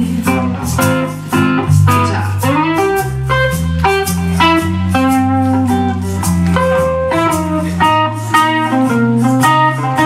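Live country band playing an instrumental break: a guitar carries the melody over bass guitar and a steady beat, with no singing.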